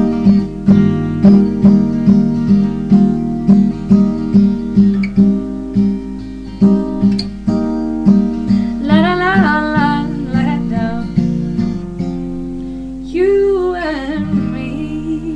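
Acoustic guitar strummed in a steady rhythm, about two strums a second, growing softer as the song ends. A woman's voice sings two wordless phrases over the last chords.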